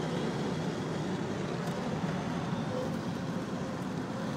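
Steady tire roar from 285/75R16 TreadWright Guard Dog mud-terrain tires on pavement, heard inside the cab of a 1987 Toyota 4Runner coasting in neutral at highway speed with the engine off the gas. It fades slightly as the truck slows.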